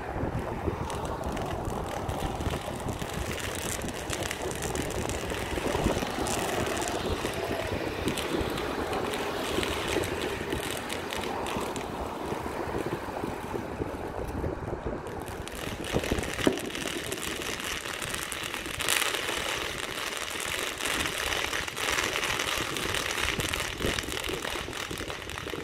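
Many fireworks going off across the city, a continuous distant crackling and popping with a few louder bangs about 6, 16 and 19 seconds in, over a steady rumbling noise.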